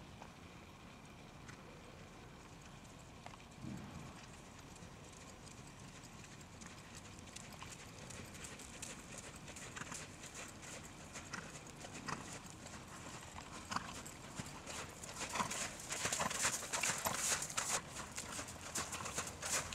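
Hoofbeats of a Hanoverian mare cantering under saddle on sand arena footing. They are faint at first and grow much louder over the last few seconds as she passes close by.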